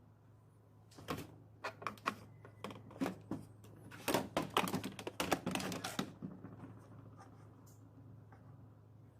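Irregular clicks and taps of small parts or tools being handled on a work surface, thickest from about one to six seconds in, over a faint steady low hum.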